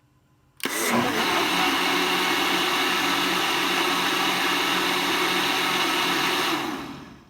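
Electric blender running at a steady speed, mixing crêpe batter of milk, eggs, flour, salt and oil. It switches on abruptly just under a second in and winds down near the end.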